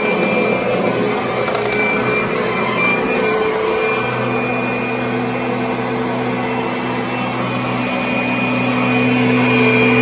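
Upright vacuum cleaner running on carpet: a steady motor whine over rushing air. A lower hum grows stronger about four seconds in and holds.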